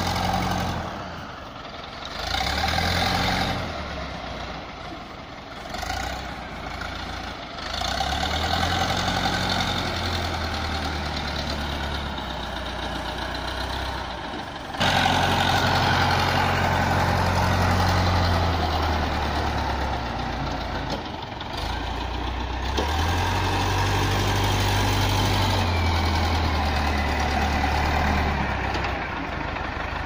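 Diesel engine of a wheel loader with log forks, revving up and falling back again and again as it drives and lifts a log.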